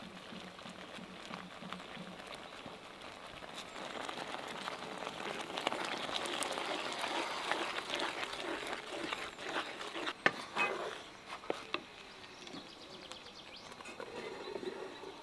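Cooking sounds from a pan of thick peach purée: sugar poured in, then a wooden spoon stirring and scraping through it, with small clicks and one sharp click about ten seconds in. A glass lid is set on the pan near the end.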